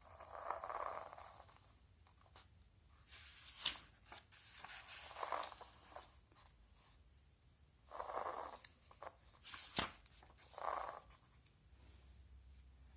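Handling of a magnetic construction toy set and its plastic packaging: four short bursts of rustling and two sharp clicks.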